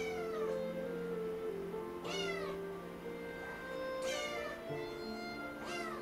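Abyssinian kitten meowing four times, about two seconds apart, each call high-pitched and falling in pitch, over background music.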